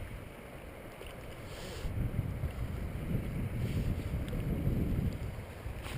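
Wind buffeting the camera microphone: a low, gusting rumble that grows stronger about two seconds in, with a short hiss just before.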